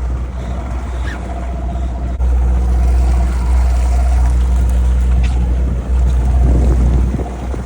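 A sportfishing boat's engine running steadily as a loud low hum, under a haze of wind and water noise.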